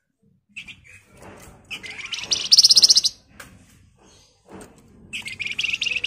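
Caged flamboyan songbird, a small brown babbler, giving a short high note followed by two fast, dense rattling trills ('ngebren'). The first trill, about a second and a half in, is the louder; the second comes about five seconds in.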